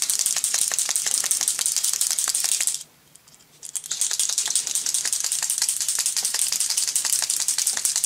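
A uni paint marker pen being shaken hard, its mixing ball rattling quickly inside the barrel to mix the paint before use. The rattling stops for under a second about three seconds in, then carries on.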